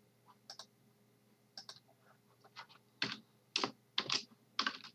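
Keys typed on a computer keyboard: a few soft clicks at first, then a quick run of louder keystrokes in the second half.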